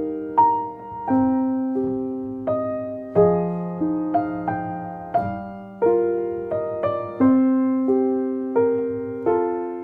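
Gentle solo piano music: single notes and chords struck about every half second and left to ring and fade.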